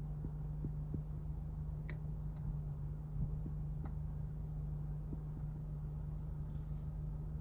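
Car engine idling, a steady low hum heard from inside the cabin, with a few faint clicks now and then.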